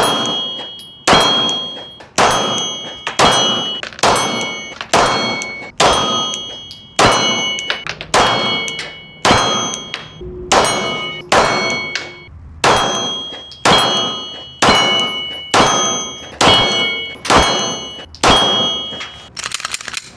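Glock 17 Gen 6 9mm pistol fired about once a second, about twenty shots. Most shots are followed by the ringing ding of a steel target being hit, which sounds on until the next shot.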